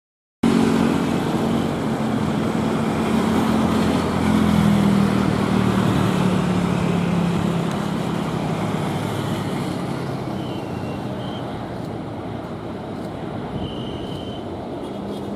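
Boeing 777-300 airliner's twin Rolls-Royce Trent turbofans running at taxi power as it rolls past: a steady jet roar with a low hum that sags slightly in pitch, cutting in abruptly about half a second in and slowly fading.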